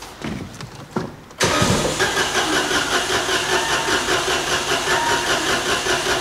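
Starter motor cranking the Citroen C3 Aircross's 1.2-litre three-cylinder petrol engine quickly and evenly for about five seconds without it firing, after a few light clicks. The owner suspects an immobiliser fault is stopping it from starting.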